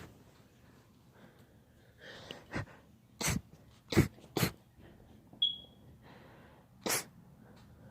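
A young girl's allergy sneezing: a fit of five short, sharp sneezes, four of them within two seconds, then one more near the end.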